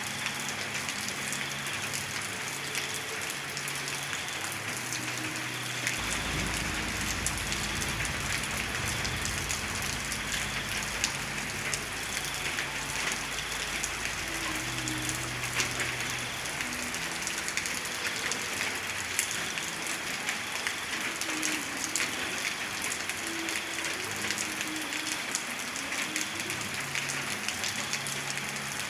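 Steady rain falling, a dense hiss of many small drop ticks. A low rumble comes in sharply about six seconds in and fades out some ten seconds later.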